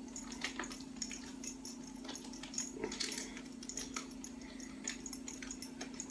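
Light metallic clicks and scrapes of a key being worked against a giant Foster's beer can to puncture it for shotgunning, over a steady low hum.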